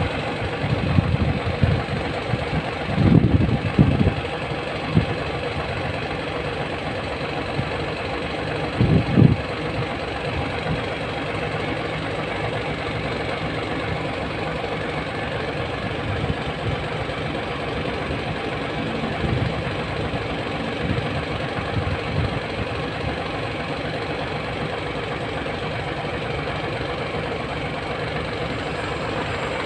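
Hino E13C straight-six diesel engine of a Hino 700 truck idling steadily. A few heavy low thumps stand out from the idle, loudest about three to four seconds in and again around nine seconds.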